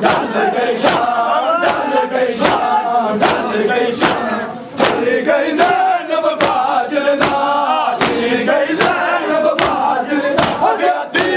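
A crowd of male mourners chanting a noha in unison, with sharp, evenly timed strikes of matam (chest-beating with the open hand), about one every 0.8 seconds. The chanting and strikes dip briefly about halfway through.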